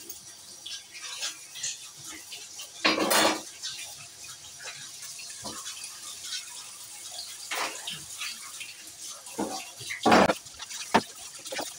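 Metal kitchen utensils and pots clattering and scraping, with many small clinks and two louder clanks, about three seconds in and about ten seconds in.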